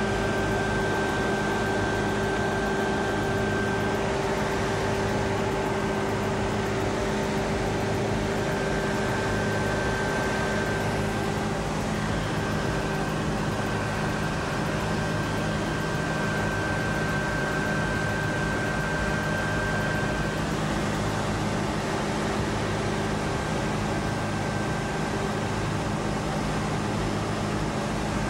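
Steady mechanical drone with several humming tones over an even rushing noise, unchanging throughout.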